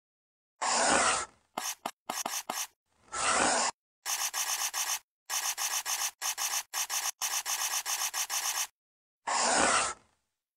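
Pen nib scratching across paper as an outline is drawn, in separate strokes: a few longer strokes, and in the middle a quick run of short scratches about five or six a second.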